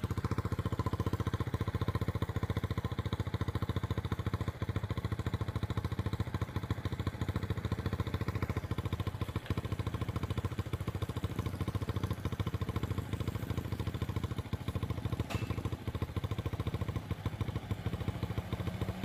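A vehicle engine running steadily at low revs, an even low throb that holds at the same level throughout.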